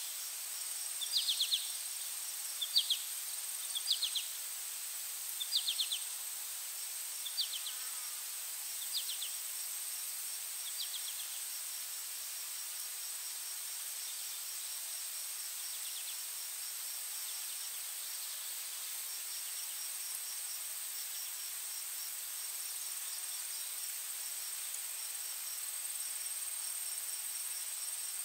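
Outdoor insect chorus: a steady high-pitched drone under a rapid pulsing trill. For the first ten seconds or so, short chirps come about every one and a half seconds, growing fainter and stopping.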